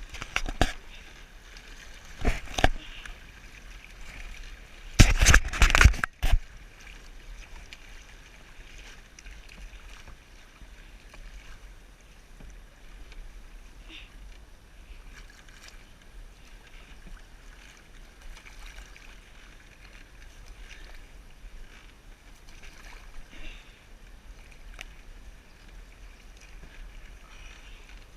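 Paddling a canoe in shallow water: a few loud knocks and bumps in the first six seconds, the biggest cluster about five seconds in, then faint water sounds and small ticks.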